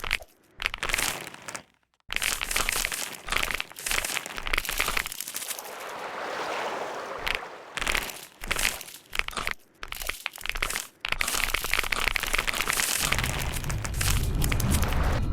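Computer keyboard being typed on: fast, dense clatter of keystrokes in runs, with short pauses between them. A low, heavy sound comes in near the end.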